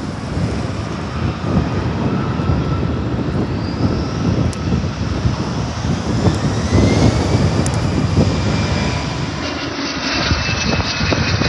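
Twin-engine jetliner's engines spooling up on the runway: a rising whine over a steady roar, under a gusty rumble of wind on the microphone. About ten seconds in, the sound cuts to a business jet's steady engine whine.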